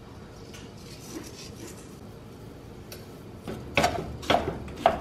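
A plastic meat chopper knocking and scraping against a nonstick skillet as it breaks up raw ground beef. There are four sharp knocks over the last second and a half, after a faint steady hiss.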